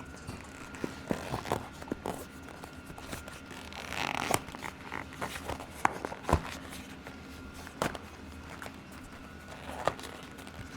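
Handling noises from working a Tannus Armour foam insert into a mountain bike tire: scattered clicks and scrapes, with a brief rustle about four seconds in.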